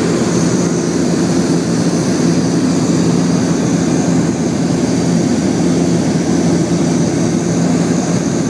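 Small passenger plane's propeller engine droning steadily in flight, heard inside the cabin: a loud, even low hum with a thin high whine above it.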